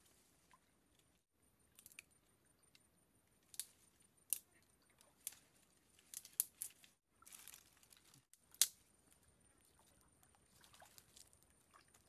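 Dry twigs and branches snapping and rustling as they are gathered and broken by hand: a scatter of sharp cracks, the loudest about two-thirds of the way through.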